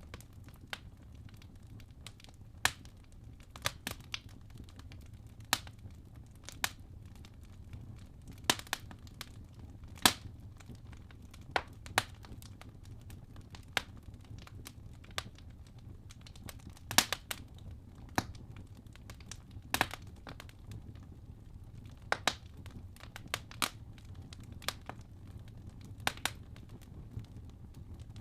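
Wood fire in a fireplace: burning logs crackling and popping at irregular intervals, a few pops sharper than the rest, over a low steady rumble of the flames.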